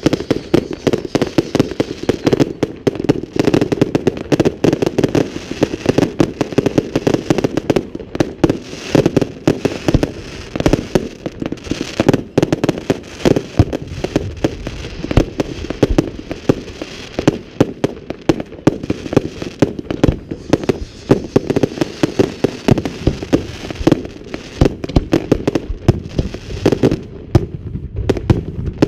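Fireworks going off in rapid, continuous succession, a dense run of bangs and crackling reports many times a second.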